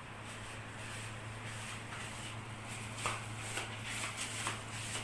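Rustling and shuffling of handling and movement, with a run of light clicks and knocks in the second half, strongest about three seconds in, over a steady low hum.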